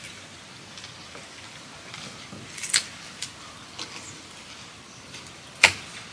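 A handful of sharp clicks and taps of chopsticks and utensils against plates and bowls during a meal, the loudest near the end.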